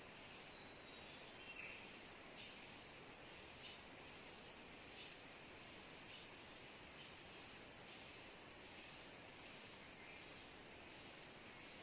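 Faint forest background with a small bird giving a series of short, sharp high chips, about one a second for six notes, then a thin steady high note later on.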